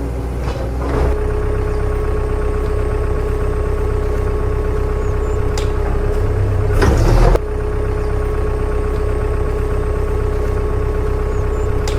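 A heavy vehicle engine idling steadily, the sound of a tractor or excavator, with a short louder surge about seven seconds in.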